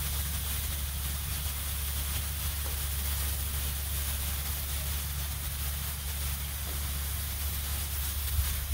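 Diced steak sizzling on a hot Blackstone propane flat-top griddle: a steady hiss, with a steady low rumble underneath.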